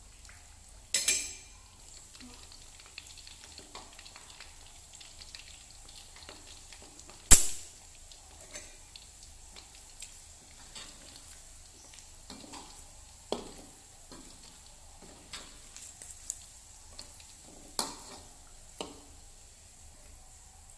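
Chicken pieces deep-frying in oil in a metal wok, a steady sizzle. A metal spatula turns them, scraping and knocking sharply against the wok several times, loudest about seven seconds in.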